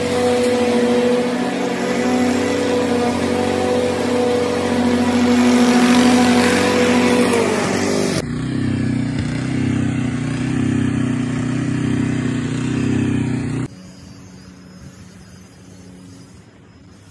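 Toro TurfMaster walk-behind lawn mower engine running steadily under load. About eight seconds in its pitch sags and the sound turns to a rougher, pulsing run. At about fourteen seconds it drops away sharply, leaving only a faint background.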